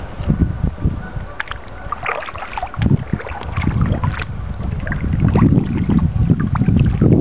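Kayak being paddled: paddle strokes and water splashing, with a few sharp knocks, over a loud, uneven low rumble.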